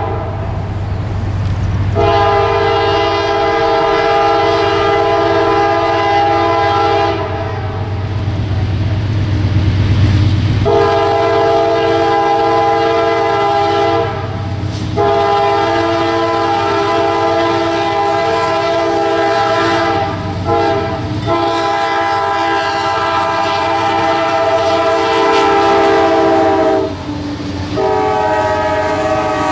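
Multi-chime air horn on a GE C40-8W diesel locomotive leading a CSX freight, sounding long blasts for a grade crossing as the train comes up and passes, over the rumble of the diesel. Near the end the wheels of passing boxcars clatter over the rail joints.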